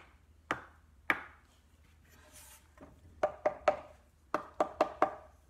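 Sharp taps of a paintbrush against something hard, flicking splatters of chalk paste onto a painted frame: two single taps, then a quick run of three and then four taps.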